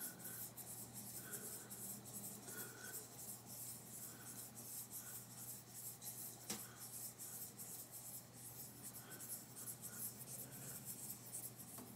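Faint scratchy ticking and rubbing as a rotary table's handwheel is cranked by hand, turning a saw-cut metal blank under a dial indicator's probe, with one sharper click about six and a half seconds in.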